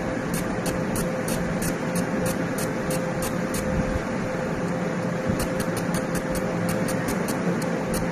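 Laser marking machine engraving metal pigeon leg rings: a steady fan-like whir and hum with a light high ticking, about three ticks a second, that pauses briefly near the middle and then comes back faster.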